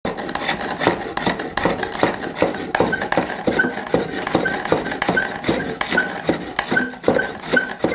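Homemade spring pole lathe in use: a wooden blank spinning back and forth while a turning tool scrapes and clicks against it in a busy clatter. A short high squeak repeats about once a second.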